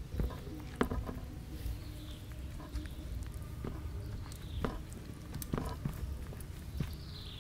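Hands pressing and patting a raw chicken piece into a bowl of flour: soft, irregular thumps and pats, about seven of them, over a low steady background rumble.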